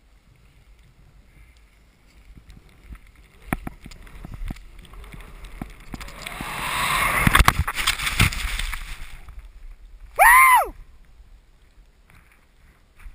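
Air and snow rushing over the skier's head-mounted microphone, swelling over a few seconds as he skis off a cliff. It ends in a couple of sharp thuds as he craters into deep powder. About ten seconds in comes a short, loud cry that falls in pitch.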